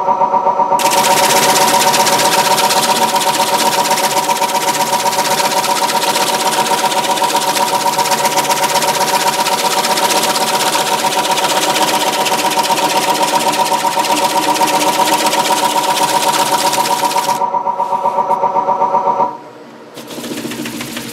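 Wood lathe running with a steady motor whine while a scraper shears across the face of a spinning basswood platter, a continuous hissing finishing cut that removes the tool lines. The cut stops a few seconds before the end, the motor whine cuts out soon after, and a fainter rubbing noise follows near the end.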